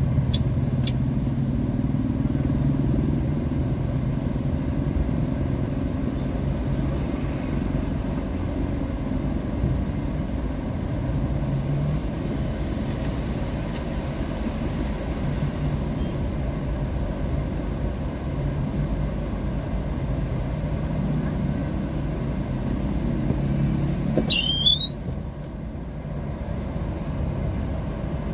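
Road traffic in a slow queue: vehicle engines idling with a steady low hum. There are two brief high-pitched squeals, one just after the start and one about 24 seconds in.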